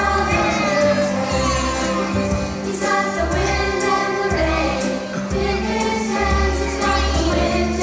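A group of young children singing together over musical accompaniment with a repeating bass line.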